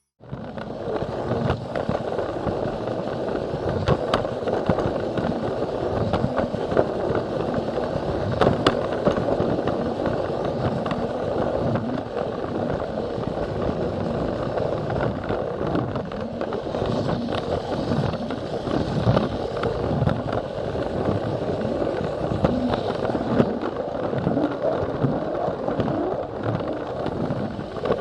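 Plarail battery-powered toy train running along plastic track: a steady rattle from its motor and wheels, with frequent irregular sharp clicks.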